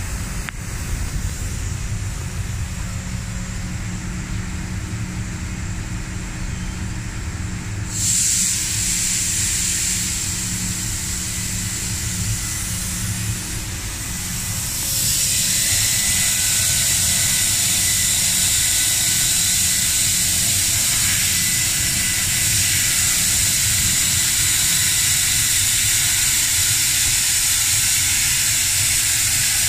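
Amada ENSIS 3015AJ fiber laser cutting machine working sheet metal: a steady machine hum, then a loud hiss of the cutting head's gas jet that starts suddenly about 8 seconds in, eases, and comes back stronger about 15 seconds in, holding steady with a faint high whistle.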